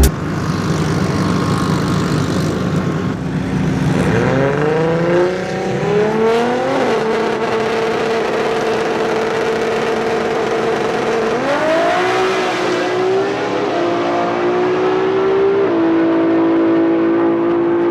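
Performance car engines running and accelerating, the pitch rising in sweeps about four seconds in and again about eleven seconds in, with long steady held notes between.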